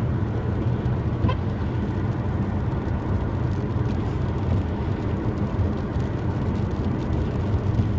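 Steady road and engine noise inside a moving car's cabin: an even, low rumble.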